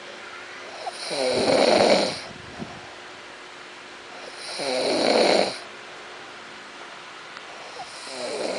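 A person snoring: three long snores about three and a half seconds apart, each lasting about a second, with the third near the end.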